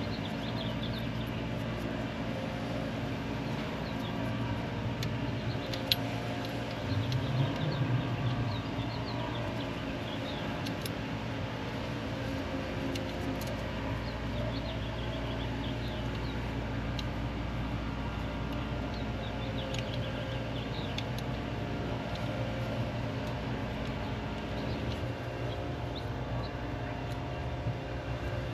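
Car engine idling steadily, with a short swell in level about seven seconds in and a single click just before it. Birds chirp faintly now and then.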